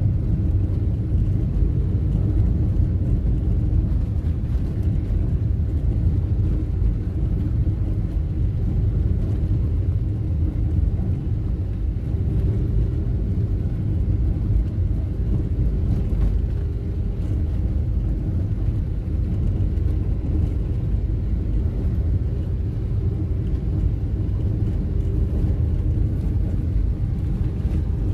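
Steady low rumble of a car's engine and tyres heard from inside the cabin while driving on a concrete road.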